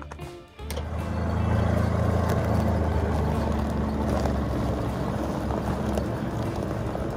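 Vintage tow truck's engine running, coming in suddenly about half a second in and staying steady, a little quieter near the end.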